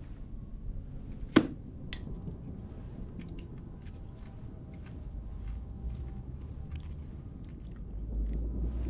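Small clicks and taps of chopsticks and tableware at a meal, with one sharp knock about a second and a half in, over a low steady hum.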